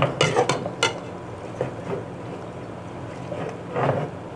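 A metal spatula clinks and scrapes against an aluminium pot as chicken is stirred in frying masala. There are about four sharp clinks in the first second and a longer scrape near the end, over a steady low hiss.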